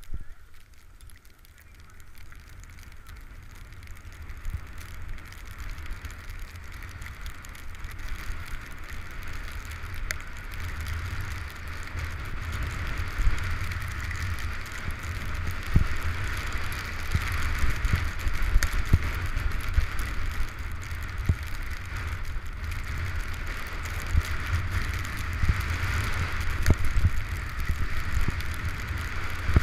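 Wind buffeting a helmet-mounted camera's microphone and skis hissing and scraping over snow during a downhill run, growing louder over the first half as the skier gathers speed, with occasional small knocks.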